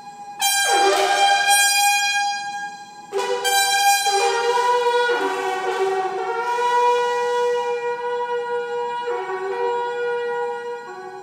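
Coiled copper-tube horn blown in long held notes. Two entries about three seconds apart, each swooping down into pitch and then held, stepping to new notes and fading near the end, over a steady high held tone.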